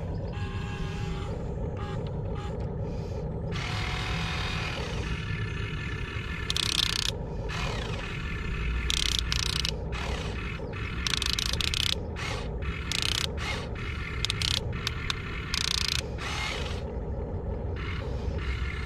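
Arm motors and metal gearboxes of a Huina 1592 1:14-scale RC excavator whirring and ratcheting in short stop-start bursts as the boom and bucket move, mostly in the second half. A steady low rumble runs underneath.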